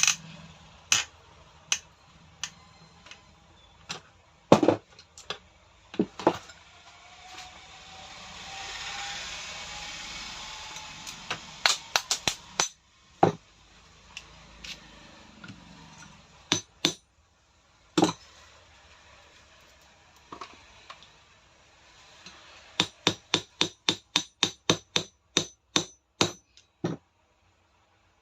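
Hammer tapping ball bearings onto the shaft of a rotary hammer's armature: scattered sharp metal strikes, then a quick even run of about a dozen taps near the end. A rasping stretch with a faint rising whine comes about a third of the way in.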